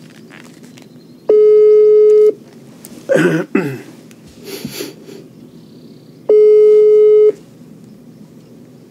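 Telephone ringback tone of an outgoing call that has not yet been answered: a steady mid-pitched tone about a second long, heard twice about five seconds apart. A brief louder noise comes between the two rings.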